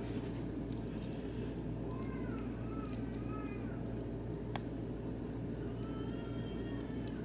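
Oak and beech wood fire crackling in a barbecue grill, with scattered small pops and one sharp, louder pop about halfway through. Faint rising-and-falling calls are heard twice.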